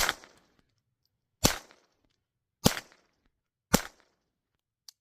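Four shots from a Ruger Mark IV 22/45 .22 LR pistol, sharp cracks about a second apart. A faint click near the end is the pistol misfiring on a bad round.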